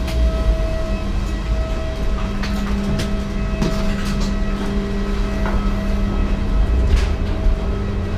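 Steady low machine hum and rumble at an airliner's door and jet bridge, with a humming tone that grows stronger about two seconds in. Scattered footsteps and light knocks come from people walking off the aircraft.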